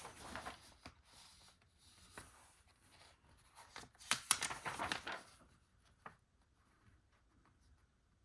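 Soft rustling and light clicks of hands handling small model-kit parts and paper, in two short spells: one at the start and a louder one about four to five seconds in.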